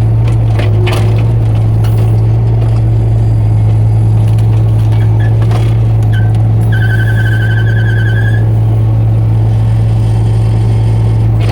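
Mini excavator's engine running steadily. A high, wavering whine sounds for about two seconds past the middle.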